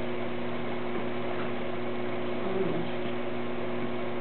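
Steady electrical or ventilation hum, made of a few held low tones over a soft hiss. A brief faint falling pitched sound comes about two and a half seconds in.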